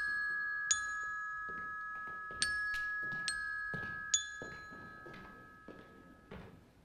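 Soundtrack music: sparse, ringing struck notes over two steady high held tones, fading away toward the end.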